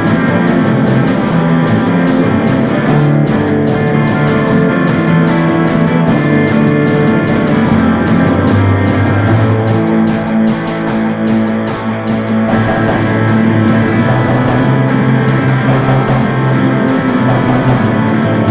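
Rock song with electric guitar and bass over a steady drum beat, with no vocals. The music thins briefly about halfway through.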